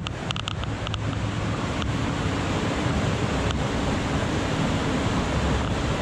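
Mountain creek water rushing steadily, with a few light clicks in the first second.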